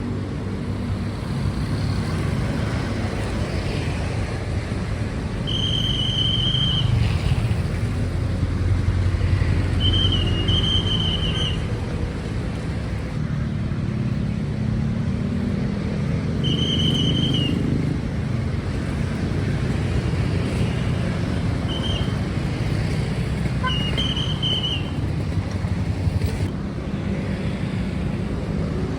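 Road traffic of cars and motorcycles running past steadily, with a short high beep sounding several times at irregular intervals, some in quick pairs.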